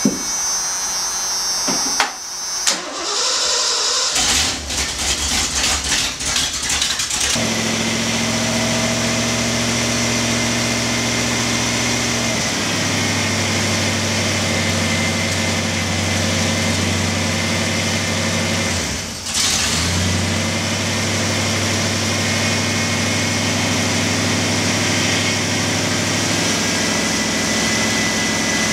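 1986 Ford F250's freshly rebuilt engine cranking on the starter for a few seconds, catching about seven seconds in, then idling steadily.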